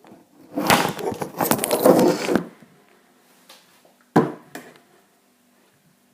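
An apple being crushed and chopped with pliers: about two seconds of crunching and tearing, then a single sharp knock about four seconds in.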